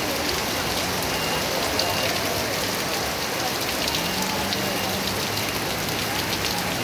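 Steady rain shower falling on street and roofs: an even, dense hiss with many sharp ticks of individual drops close by.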